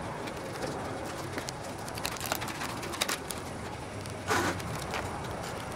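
Plastic protective film and a plastic wing cuff being handled: a run of small crackles and rustles, with a louder rustle about four seconds in.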